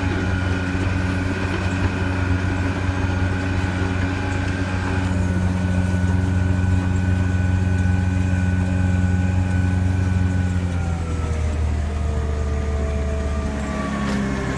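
Diesel engine of a 2006 Volvo G930 motor grader running steadily, its pitch sliding down about eleven seconds in as the engine slows.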